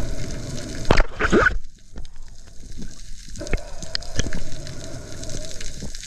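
Underwater sound heard through a diver's camera: water gurgling and moving, with a loud gurgling rush about a second in and scattered small clicks. A steady hum runs underneath and drops out for a couple of seconds in the middle.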